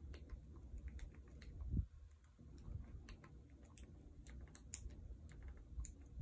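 Keys of a handheld calculator being pressed in a quick, irregular run of small clicks as a trigonometric expression is keyed in, with one dull bump a little under two seconds in.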